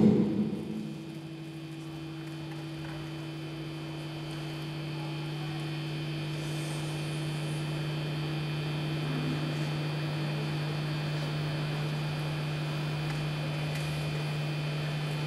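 A loud rumbling sound dies away in the first second. It leaves a steady low electronic hum with a few faint high tones above it, which swells slowly louder.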